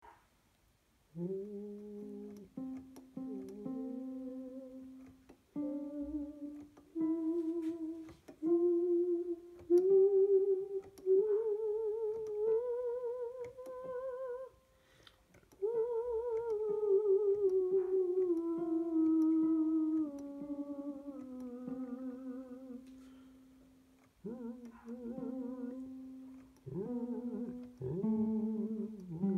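A voice hums along to single notes picked out on an electronic keyboard. The notes step upward one by one to a peak about halfway, then step back down, and the pitch wobbles on the higher notes.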